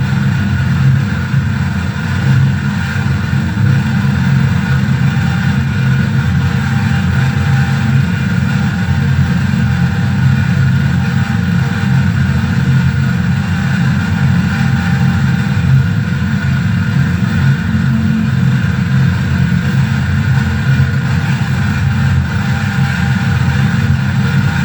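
Harsh noise drone from a mixer-feedback rig with reel-to-reel tape, reverb and bass: a dense, heavy low rumble under a steady high ringing feedback tone, loud and unbroken.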